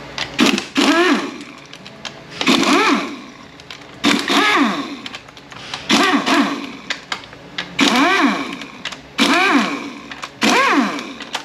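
A cordless power driver runs out 10 mm bolts on the front of a 9T65 automatic transmission, in about seven short bursts. The motor whirs up and back down in pitch with each one, as one bolt after another spins out.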